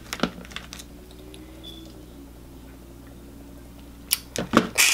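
Close-up handling of crab legs and a lemon wedge: a few soft clicks of shell and fingernails at the start, a quiet stretch, then a louder run of sharp crackles and squishes near the end as the lemon wedge is squeezed over the crab.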